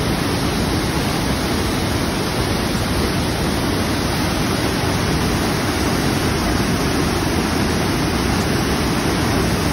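Steady, loud rush of a storm-swollen, muddy river pouring over a wide rock-ledge waterfall into churning whitewater.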